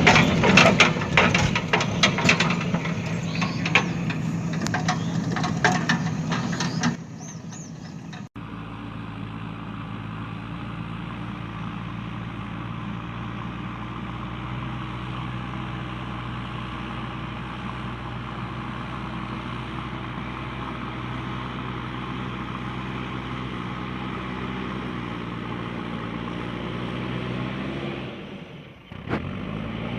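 Large engine idling steadily, the pitch dipping and then rising briefly near the end. Before it, for about the first seven seconds, a louder clattering sound with many sharp clicks, which stops abruptly.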